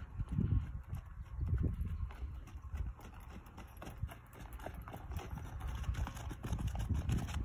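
A horse's hooves thudding on soft sand as it canters under a rider, in uneven groups of low beats.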